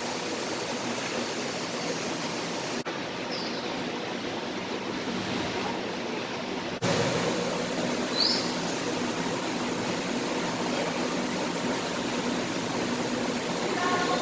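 A steady rushing noise, like flowing water or moving air, with two brief high chirps. It breaks off and picks up again twice, about three and seven seconds in.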